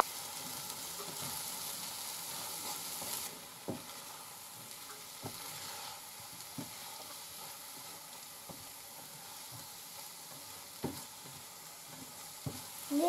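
Scrambled eggs sizzling gently in a nonstick frying pan while a silicone spatula stirs and turns them, with scattered soft taps of the spatula on the pan. The sizzle drops a little after about three seconds.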